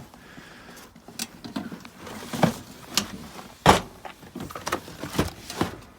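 Rummaging through a cluttered parts supply: irregular knocks and clatters of boxes and small parts being moved, the loudest a little before four seconds in.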